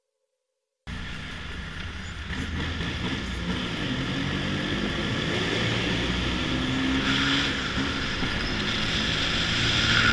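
Car driving through a road tunnel: steady engine and tyre noise that starts suddenly about a second in, after near silence, and grows slightly louder.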